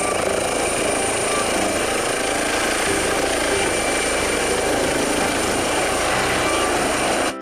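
Air ambulance helicopter, a Eurocopter EC135 with an enclosed tail fan, lifting off with its turbines running and rotors turning at full speed. It makes a loud, steady rushing noise with a high turbine whine over it, and cuts off suddenly near the end.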